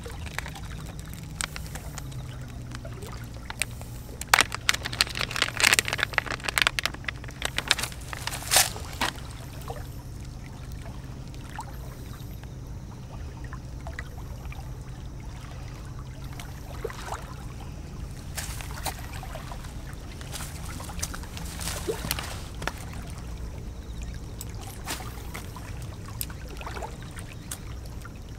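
Crinkling and clicking of a plastic soft-bait package being handled, densest over the first several seconds, then only scattered small handling clicks. Under it, light water at the shore and a low steady hum.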